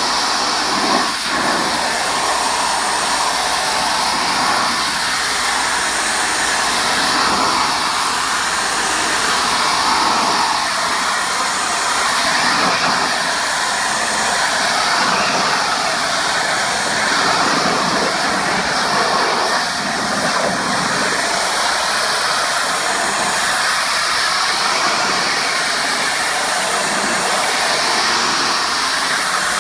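Pressure washer jet spraying water onto a patio surface: a loud, steady rushing spray with no breaks.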